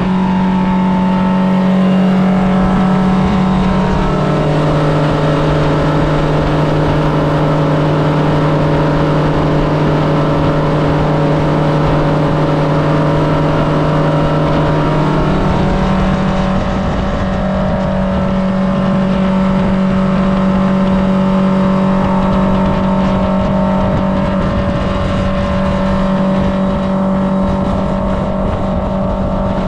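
Boat's outboard motor running steadily under way, its pitch dropping about four seconds in as it slows and rising again about fifteen seconds in.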